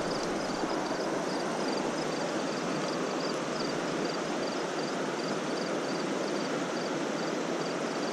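Steady rush of river water flowing over rocks, with an insect chirping in short high-pitched pulses, a few a second, over it.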